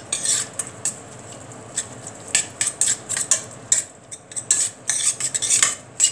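Metal spoon stirring chopped raw beef in a stainless steel pot, scraping and clinking against the pot in irregular strokes that come thicker in the second half.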